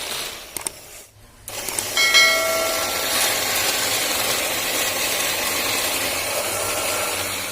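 A machine running with a steady hiss-like noise, starting after a short quiet gap about a second and a half in, with a brief cluster of high tones shortly after it starts.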